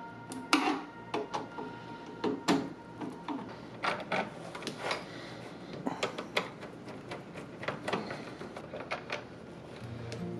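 Irregular clicks, taps and knocks of hands and tools working on wiring at an electrical distribution panel, with two sharper knocks early on standing out.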